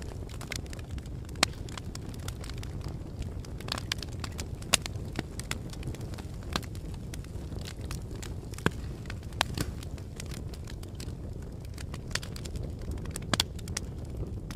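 Fire crackling: irregular sharp pops and snaps, a few louder than the rest, over a steady low rumble of the burning flames.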